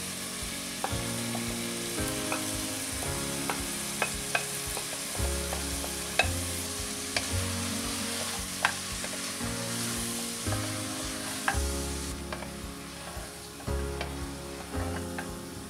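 Chopped vegetables and meat sizzling as they fry in a pot, stirred with a wooden spatula that clicks against the pot about a dozen times at irregular moments.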